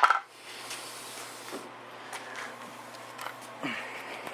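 Light clicks and taps of small boat parts being handled, over a steady low hiss, with a sharper knock right at the start.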